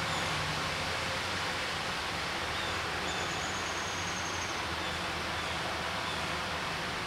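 Steady, unbroken rushing of running water at a creek, with a faint thin high whistle for a moment in the middle.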